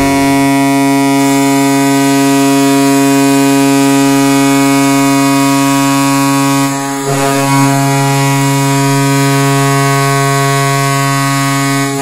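Tampa Bay Lightning goal horn blowing two long blasts, with a brief break about seven seconds in. It is a crisp, squeaky horn chord.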